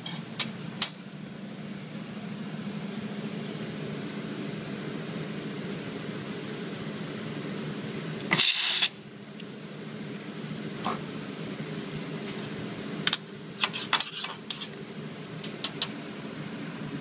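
Drawn arc stud welder firing one weld: a loud burst about half a second long, about eight seconds in, as the arc welds a half-inch mild steel stud onto eighth-inch steel plate, over a steady hum. Sharp clicks near the start come from handling the stud gun, and more clicks come after the weld as the gun comes off and the ceramic ferrule breaks away.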